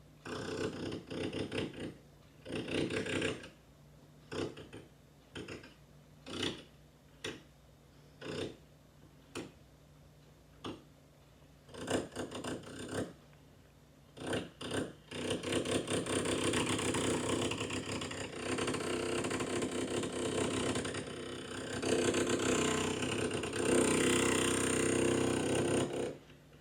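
Electric drill motor run in a series of short bursts, then held running for about ten seconds before it stops near the end.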